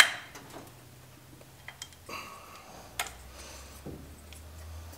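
A sharp click, then scattered light clicks and ticks as a Porta-Power hydraulic ram is worked to push a car's subframe forward. A low steady hum comes in about two seconds in.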